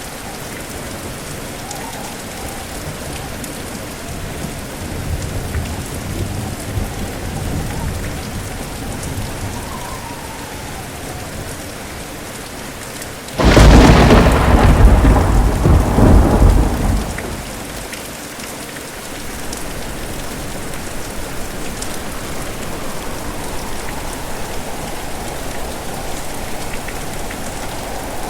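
Steady heavy rain with a low rumble of thunder swelling and fading. About halfway through comes a sudden loud thunderclap that rolls on for three or four seconds before dying back to the rain.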